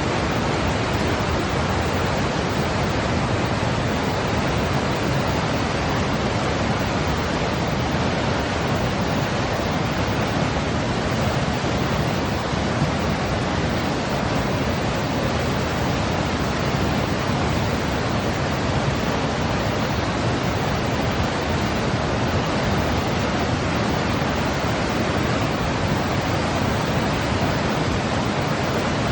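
Steady baby-soothing white noise, an even, unchanging hiss weighted toward the low end, like pink noise.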